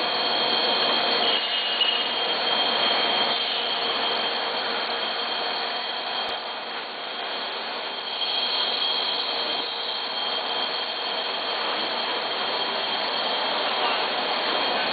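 Plastic profile extrusion line running: steady machine noise, a high whine over a hiss.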